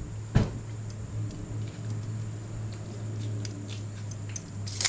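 Handling of a tape measure against a motorcycle drive chain: a knock about half a second in and a sharp click near the end, over a steady low hum.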